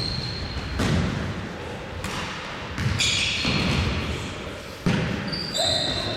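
Futsal ball kicked and bouncing on a wooden sports-hall floor, three echoing thuds about two seconds apart, with trainers squeaking on the boards in between.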